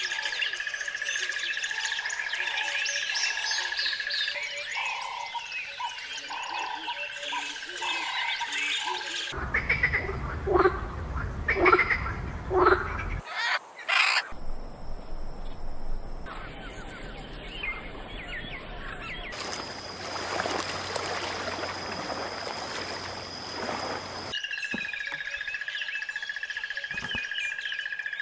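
A string of wild-bird sound beds that change several times: many birds chirping over a steady high tone, a run of loud harsh squawks about ten seconds in, then a stretch of even hiss, and the chirping over the steady tone again near the end.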